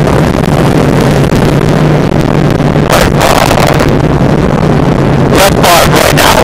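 Subaru Impreza rally car's turbocharged flat-four engine running hard at speed on a gravel stage, heard from inside the cabin. Loose gravel clatters against the car in bursts about three seconds in and again near the end.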